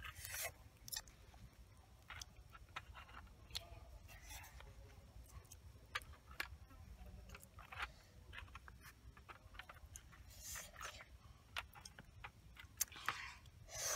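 Clam shells clicking lightly against each other and the wire grill rack as they are set out one by one, with a few brief rustles of the banana leaf under them.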